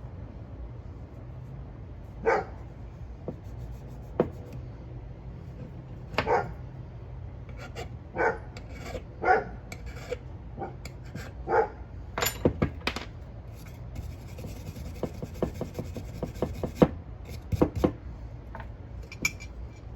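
A dog barking, about six short single barks a second or two apart, with sharp clicks and taps of small objects being handled in the later part.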